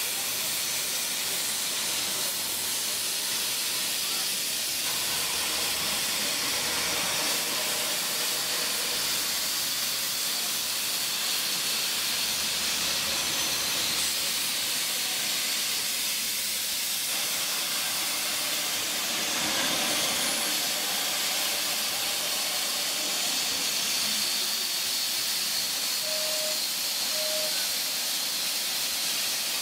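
1881 Baldwin steam locomotive No. 340 hissing steadily as steam escapes low at the front, by its cylinders.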